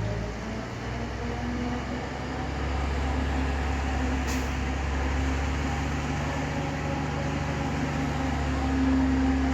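Excavator's diesel engine running steadily, with a low hum that grows a little louder after about two seconds and a brief faint hiss about four seconds in.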